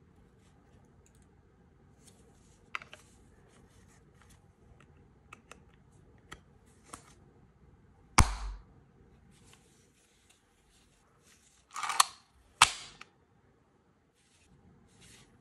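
Gloved hands handling an Umarex Legends P08 CO2 BB pistol: soft rubbing and small clicks, with a sharp clack about eight seconds in and two more about four seconds later, half a second apart.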